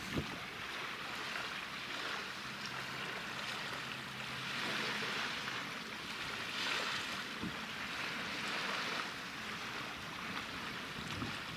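Sea waves washing in soft surges every second or two, with wind buffeting the microphone in a few brief low thumps and a faint low hum from the ships in the first few seconds.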